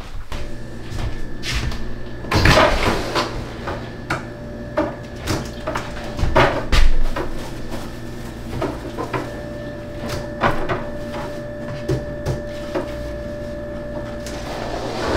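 A door with a curtain being handled and moved: a string of knocks and rattles, with louder rustling bursts about two and a half and seven seconds in, over a faint steady hum.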